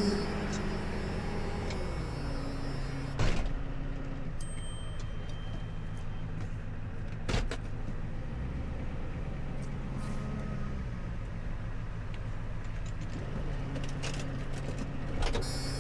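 Tow truck engine running steadily, its speed stepping down a couple of times, with a few short sharp knocks or clanks.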